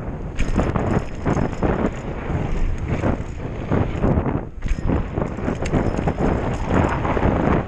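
Hardtail mountain bike running fast down a dirt trail: tyre noise on the dirt with a constant clatter of knocks and rattles from the bike over bumps, easing briefly about four and a half seconds in.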